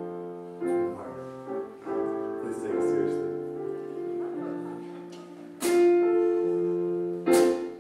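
Live band music led by piano chords, held and changing every second or so, with two sharp accents in the second half.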